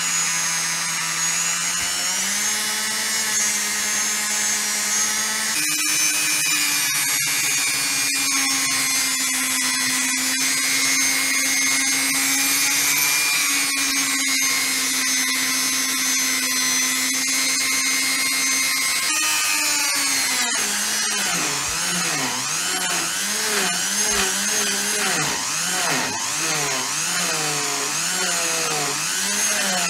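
Electric power tool, such as a drill or grinder, running continuously. Its motor pitch steps up twice in the first few seconds, holds steady, then wavers up and down about once a second in the last third.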